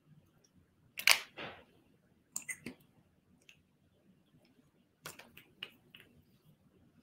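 Short clicks and small mouth noises, such as lip smacks, while a lip pencil is worked on the lips. They come in three small clusters, about a second in, around two and a half seconds and around five seconds in.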